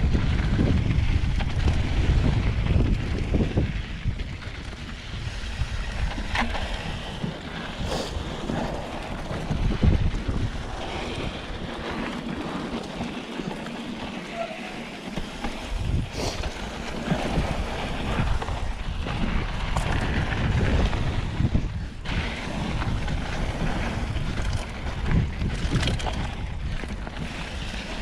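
Mountain bike riding down a dirt trail: wind buffeting the microphone over the rumble of knobby tyres on packed dirt and rock, with scattered knocks and rattles from the bike over bumps. The rumble eases for a few seconds around the middle, then builds again.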